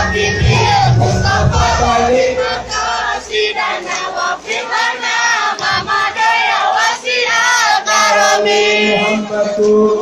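A man singing through a microphone and PA, with a crowd including children singing along. The low-pitched backing music fades out in the first few seconds, leaving mostly voices.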